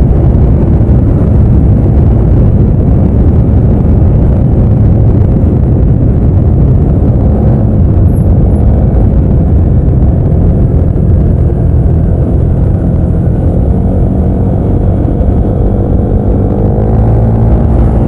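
Yamaha Aerox 155 scooter's single-cylinder engine and CVT running at road speed, easing off as the scooter slows from about 70 to 60 km/h, with a steady low rumble of road noise. The engine note rises again near the end.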